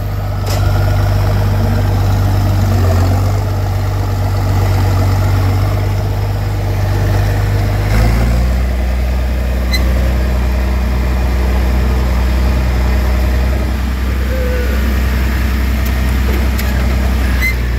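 Farm tractor engine running steadily; about eight seconds in, its note drops to a lower, deeper pitch as the engine speed changes.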